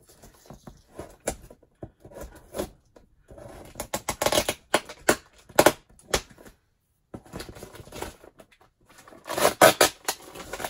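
Paper shipping label being scratched and peeled off a cardboard box by hand: irregular scrapes, rips and crinkles, busiest a few seconds in and again near the end, with a short pause past the middle.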